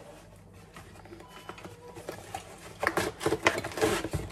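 Quiet room tone, then from about three seconds in a busy run of clicks, knocks and rustling as new plates and their packaging are handled.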